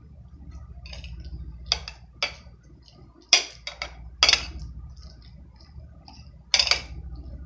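Metal table knife scraping and clinking against a ceramic plate while mixing food, with about half a dozen sharp clinks spread through. A steady low hum runs underneath.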